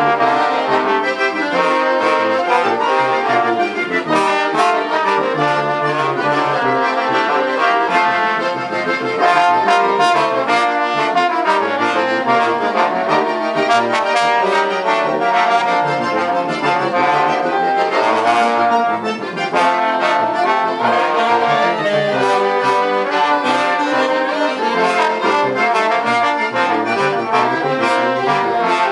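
A small ensemble of tuba, trombone, trumpet, clarinet and alto saxophones playing a hymn together in sustained chords, with a short breath between phrases about two-thirds of the way through.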